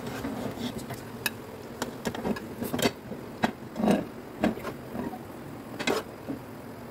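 Metal spoon scraping and knocking against a metal cooking pot and a glass serving platter as cooked rice is dished out: irregular clicks and taps, several of them sharp.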